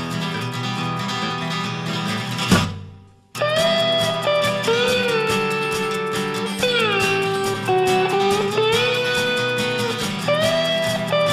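Guitar music with sliding, bending notes over a steady strummed rhythm, breaking off briefly about three seconds in before starting again.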